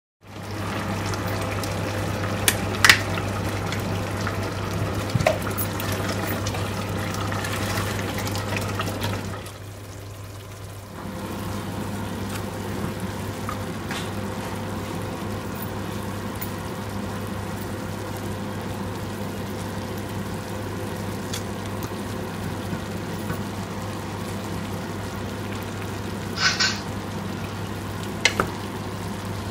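Steady sizzling from a steel pot of mutton and zucchini cooking on the hob, with a low hum underneath. A few short clinks come from the spoon against the pot, and the sound drops briefly about ten seconds in.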